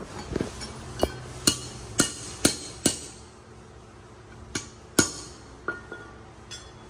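Hammer blows on metal, each ringing briefly: about six strikes roughly half a second apart in the first three seconds, then a pause and a few more spaced strikes.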